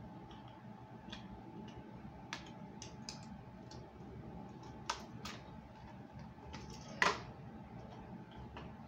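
Scattered small plastic clicks and taps from handling a pistol-grip RC car transmitter, with two sharper clicks about five and seven seconds in, the second the loudest.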